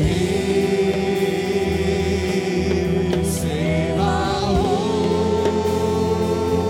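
Live worship band playing a slow song, with sustained keyboard chords and bass guitar under a voice singing long held notes. A higher, wavering vocal line comes in about four seconds in.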